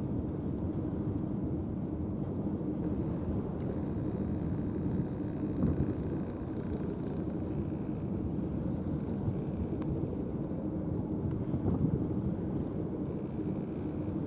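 Steady low rumble with a faint hum, from a passing container ship's engines heard across the water.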